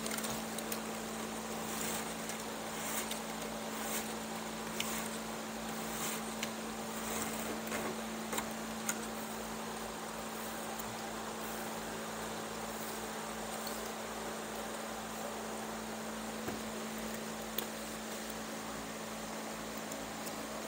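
A steady low electrical hum with hiss. Over it, during roughly the first half, faint scattered ticks and rustles as a strand of chair cane is pulled and woven by hand through the caned chair back.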